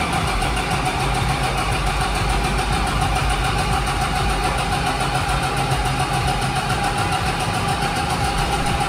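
Clarke diesel fire pump engine cranking steadily on its starter without catching, with a steady whine over the rumble. This is one automatic crank attempt by the pump controller during a fail-to-start test.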